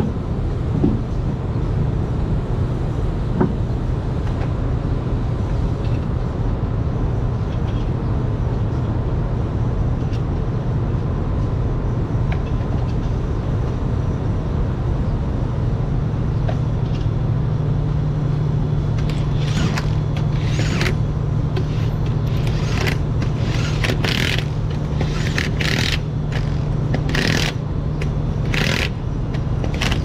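A steady low machine drone throughout, typical of a tire-service truck's engine or compressor running. From about two-thirds of the way in, a run of short, sharp hissing bursts, like air let out from a tire-shop air line.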